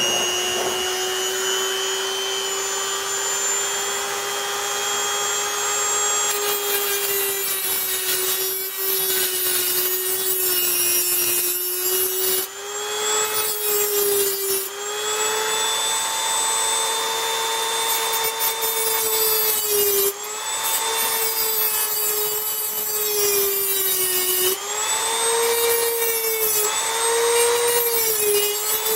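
Dremel rotary tool running at high speed, its grinding wheel cutting a notch into the end of a small metal tube: a steady high whine whose pitch sags briefly each time the wheel is pressed into the work, with a gritty grinding noise joining in about six seconds in.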